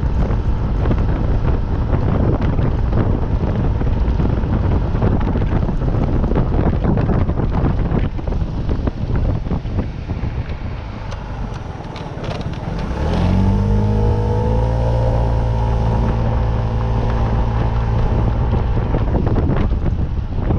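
Rushing wind noise on the microphone from a moving vehicle; about thirteen seconds in, an engine rises in pitch and then holds a steady drone.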